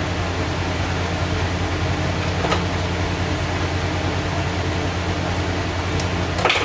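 Steady low machine hum with a hiss, like an air conditioner or fan running, with a faint click about two and a half seconds in and another near the end.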